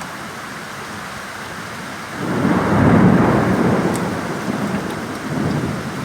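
Heavy rain falling steadily, with a roll of thunder that swells about two seconds in, peaks a second later and slowly dies away.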